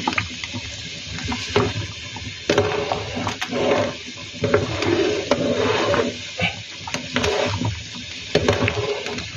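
A metal ladle stirring a pot of thick coconut-milk ginataang bilo-bilo, the liquid sloshing and the ladle knocking against the pot at irregular moments.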